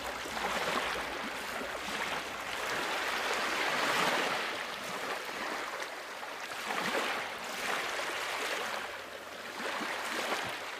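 Small waves washing against a rocky shore, swelling and ebbing in slow surges every couple of seconds.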